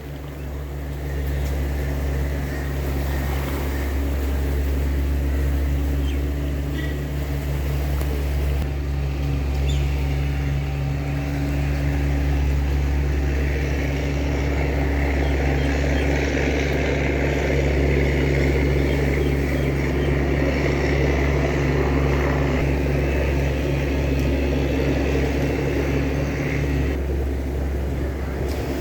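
A motor engine running steadily, a low drone with a steady hum, over a wash of background noise.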